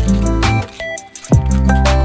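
Background music with a heavy beat: deep bass hits that slide down in pitch under steady melodic notes.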